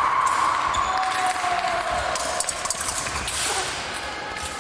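Two long electronic beeps from a fencing scoring apparatus: a higher tone that holds until about half a second in, then a lower one that sags slightly and fades about two and a half seconds in, over short clicks and knocks in the hall.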